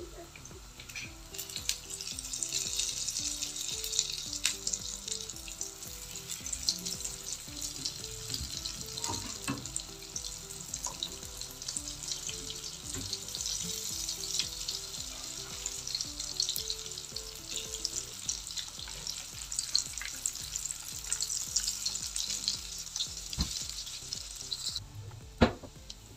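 Crumb-coated lentil (masoor dal) kababs shallow-frying in hot ghee in a pan: a dense, crackling sizzle with many small pops, which cuts off suddenly near the end, followed by a sharp knock.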